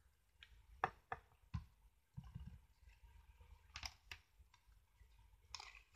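Scattered light clicks and taps of craft supplies being handled and set down on a desk, including a glue bottle, with a soft low thump about two seconds in.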